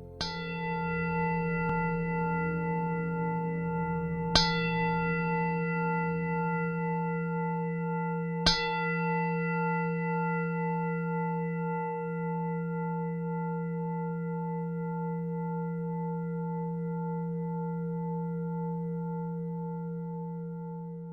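A singing bowl struck three times, about four seconds apart, ringing on in a long, slowly fading tone with a gentle pulsing waver.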